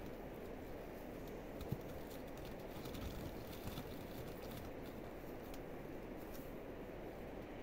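Pomegranates being tipped from a wicker basket into a sack, with a few soft knocks as they land, over a steady faint outdoor hiss.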